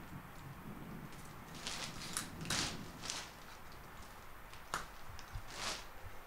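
Clear plastic umbrella canopy rustling and crinkling as it is swung about, in several short swishes, with one sharper tick near the end.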